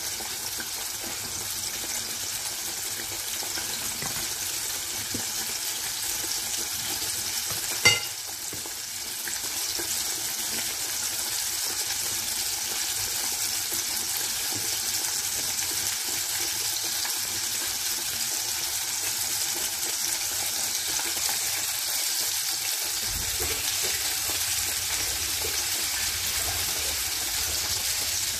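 Hot oil sizzling steadily in a frying pan as chicken is fried, with one sharp click about eight seconds in.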